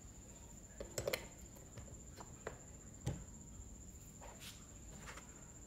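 Light clicks and knocks from a chainsaw guide bar being handled and fitted onto the bar mount of a Makita MUC400 electric chainsaw, with a cluster about a second in and the loudest, a dull knock, about three seconds in.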